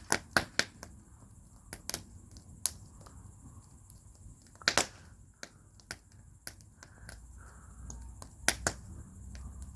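Wood fire burning in a fire bowl, crackling with irregular sharp pops and snaps, with loud clusters at the start, around the middle and near the end. A low rumble builds near the end.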